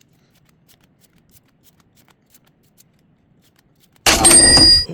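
Pokémon trading cards being handled and slid through by hand, with faint soft ticks. Near the end comes a loud, sudden rush of noise with a few ringing tones, lasting just under a second.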